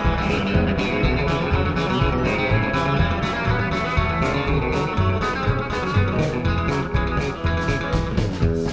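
Live country-rock band playing an instrumental break: electric guitars over upright bass and drums keeping a steady beat.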